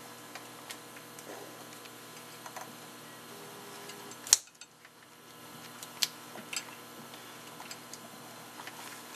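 Faint handling noise as a rubber triaxial membrane is fitted onto the metal base: scattered light clicks and taps, with one sharper click about four seconds in, over a steady background hum.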